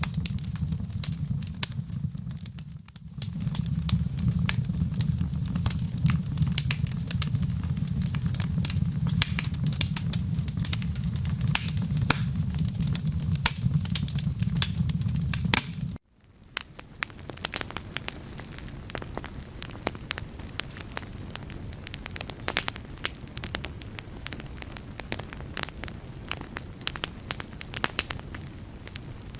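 Wood fire crackling with many sharp pops over a low, steady rumble. About sixteen seconds in, the sound cuts out for an instant and comes back quieter, the crackling continuing with far less rumble underneath.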